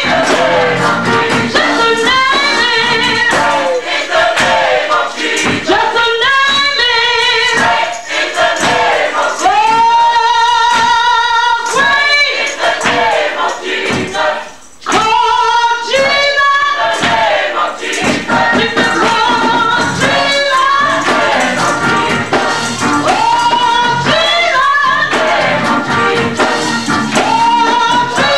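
Gospel choir singing in full voice over a steady beat, with a brief break a little past halfway.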